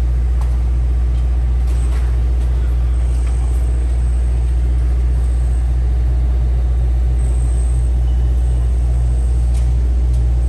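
Construction machinery at a demolition site running with a steady, loud, low engine drone, and a few faint clicks over it.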